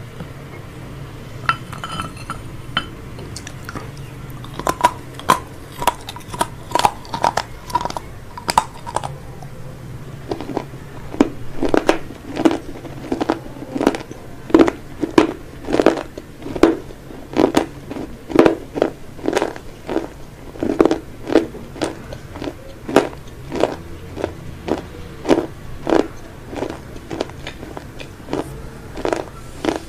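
Close-miked chewing of crunchy fried fast food, mukbang style: sharp crunches, a few scattered at first, then a steady rhythm of about two bites a second for the rest.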